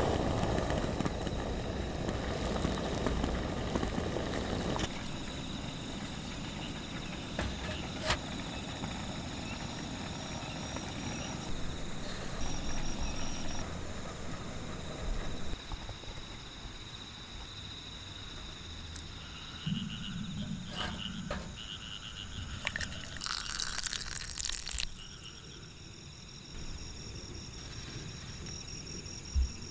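Summer-night insects chirping steadily, with the hiss and bubbling of a pot of water boiling over a camp flame during roughly the first five seconds. A few light knocks and clicks of handling come later.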